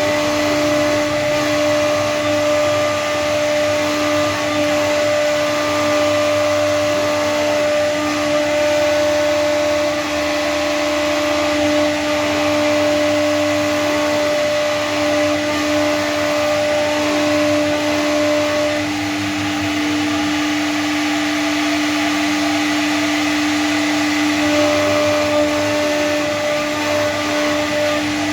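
CNC router spindle running steadily while carving a design into PVC board: a constant whine with a higher tone that drops out for a few seconds past the middle, and short rising and falling tones over it.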